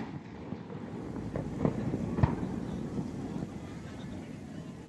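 Fireworks going off, heard as several sharp bangs; the loudest comes a little over two seconds in, with fainter pops before it. Wind noise on the microphone and a low background rumble run underneath.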